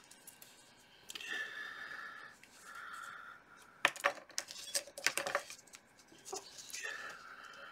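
Whistling breaths through the nose, each about a second long, several times over. In the middle come a quick run of small sharp metallic clicks and taps from steel tweezers handling a photo-etched brass part.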